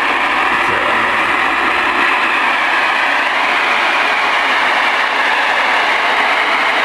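Steady, loud static hiss from a Ranger RCI-69FFC4 ten-meter radio receiving on FM, with the squelch open and no station on the channel.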